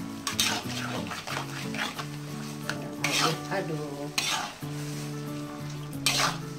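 Spatula scraping and stirring in a metal wok, with several scrapes over the sizzle of broccoli in a sauce just thickened with sago starch water.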